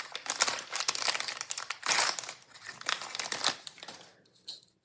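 Thin plastic wrapping crinkling and crackling in the hands as a small blind-box item is unwrapped, dying away about four seconds in.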